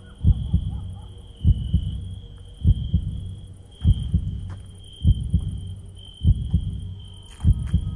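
Heartbeat sound effect: slow, regular double thumps (lub-dub), about one beat every 1.2 seconds, over a steady high whine.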